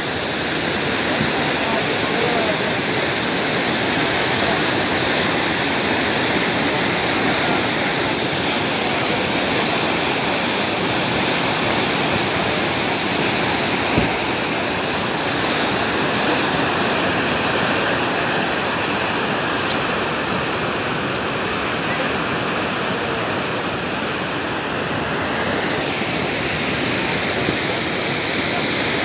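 Bhotekoshi River in flood, a fast muddy torrent rushing past in a loud, steady wash of water. A single short knock about halfway through.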